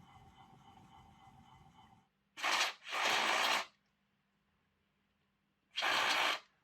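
Three short scraping strokes of a small file on the plastic gear teeth of a Lima model locomotive, taking off moulding flash. The first two strokes come close together about two seconds in, and the third comes near the end.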